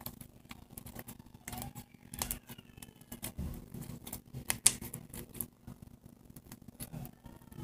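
Sticky fluffy slime made of glue, shaving cream and contact-lens solution being squeezed and stretched between the fingers, giving irregular soft wet clicks and crackles, with one sharper snap about halfway through.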